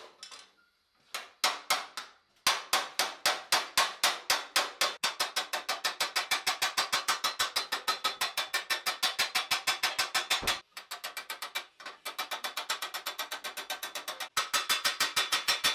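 Small hammer striking a steel visor plate heated red-hot at one spot and held over an anvil stake: a few single blows, then steady fast hammering from about two and a half seconds in at five to seven blows a second, with a few brief breaks near the end.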